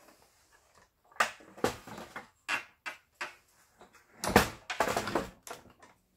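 Irregular clunks, knocks and rattles of a Singer 7466 sewing machine's plastic housing and metal mechanism being handled and fitted together by hand. The loudest clatter comes a little past four seconds in.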